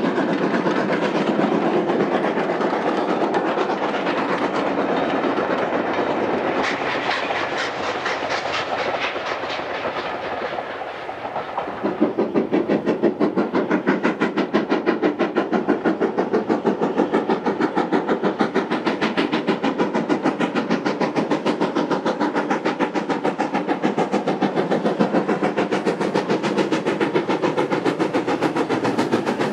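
Two-cylinder B1 class 4-6-0 steam locomotive working hard with a passenger train, its exhaust beating in a rapid, even rhythm. About halfway through the beats turn louder and sharper.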